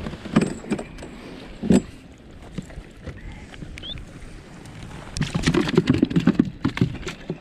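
Knocks and clatter of things being handled on a kayak: a couple of single knocks, then a quick run of knocking and rattling about five seconds in.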